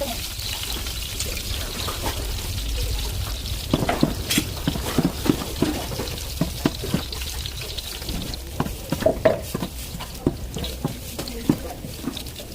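Food frying in a pan: a steady sizzle, then from about four seconds in, repeated knocks and scrapes of a utensil stirring it.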